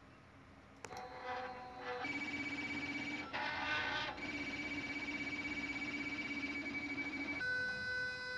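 A series of steady electronic tones, each held for one to three seconds before switching abruptly to a new pitch, several times over.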